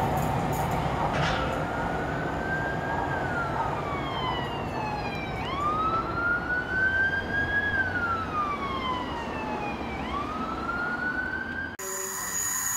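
An emergency vehicle's siren wailing, slowly rising and falling in pitch with a full cycle about every five seconds, over the running noise of a passing HST train. It cuts off suddenly near the end.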